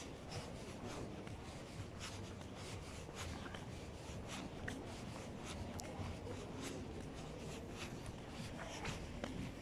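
Footsteps and the rubbing of a handheld phone as it is carried on a walk: irregular light clicks and scrapes over a low, steady background hum.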